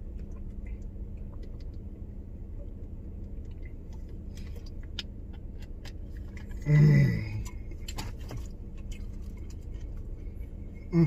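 Light clicks and rustles of a sandwich being handled and eaten over a steady low rumble, with a brief vocal sound about seven seconds in.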